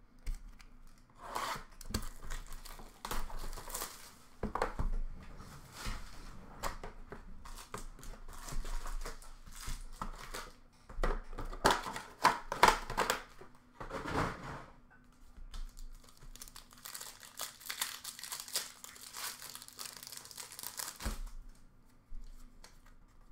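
Panini Rookie Anthology hockey card packs being torn open and their plastic wrappers crinkled, in irregular rustling bursts that are loudest about halfway through.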